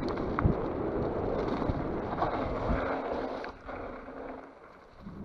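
Wind rushing over the microphone and a mountain bike rolling fast down a rough trail, tyres and frame rattling, with two sharp knocks as it goes over bumps. The noise falls away about three and a half seconds in.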